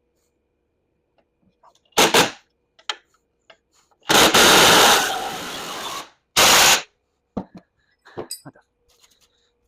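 Power tool, most likely an impact wrench, rattling in three bursts on the golf cart's rear frame bolts: a short one about two seconds in, then a long one about four seconds in that is loud for about a second before dropping lower, then a short one. Small metallic clicks come between the bursts.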